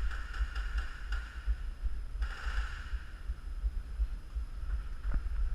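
Low, irregular thumping rumble on the microphone, with a few short patches of hiss and a brief click near the end.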